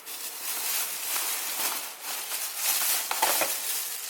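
Rustling and handling of packaging material as a boxed humidifier is unpacked, an uneven rustle with a few light knocks.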